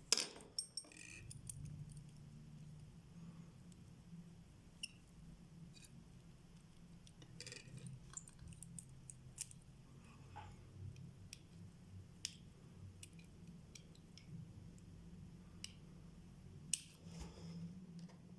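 Scattered faint clicks and metal taps of small watchmaker's tools handling the parts of a Vostok Amphibia watch movement during disassembly, over a steady low hum.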